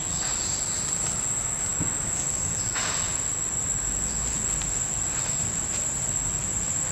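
Steady high-pitched insect drone in the forest, unbroken throughout, with a brief louder swish about three seconds in.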